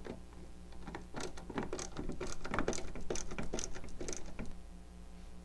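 Hand screwdriver turning screws into a dehumidifier's duct collar and sheet-metal cabinet: a quick, irregular run of small clicks and ticks for a few seconds.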